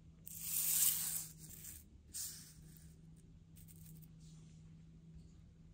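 Sheets of paper rustling and sliding onto a tile floor as two cards are laid down, loudest about a second in, with a shorter rustle a second later and a few faint ones after. A faint steady low hum runs underneath.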